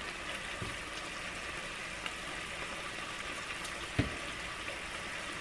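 Bacon strips frying at low heat in a stainless steel pan, a steady sizzle, with a single thump about four seconds in.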